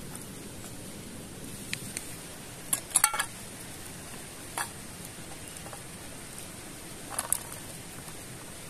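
Handling of a wooden cutting board and cookware on a rock: a cluster of knocks about three seconds in as the board is set down, then lighter clacks near the end as meat pieces go into a small metal pot, over a steady background hiss.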